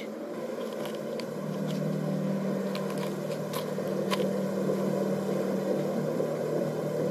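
A steady low hum with a few faint, scattered clicks, which fit chewing on a raw sandfish lizard.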